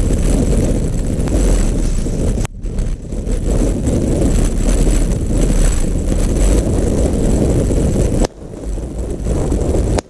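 Strong gusting wind buffeting the microphone, a loud low rumble. It drops off sharply about two and a half seconds in and again near the end.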